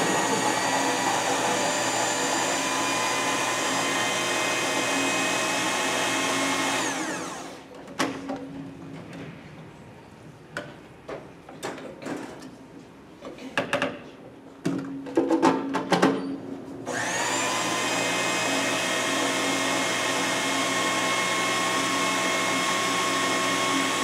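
Food processor puréeing artichoke hearts, olives and capers into tapenade, its motor running with a steady whine. It spins down about seven seconds in, and clicks and knocks follow as the lid is taken off and put back on, loudest around fifteen seconds. The motor starts again at about seventeen seconds and runs steadily.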